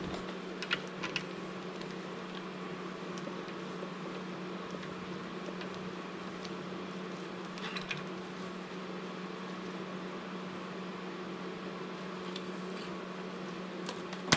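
A steady motor hum, like a running fan, holding one low pitch, with a few faint light clicks about a second in and again near the middle.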